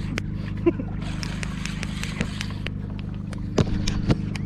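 A fishing boat's engine running with a steady low hum, with scattered sharp clicks and two louder knocks near the end.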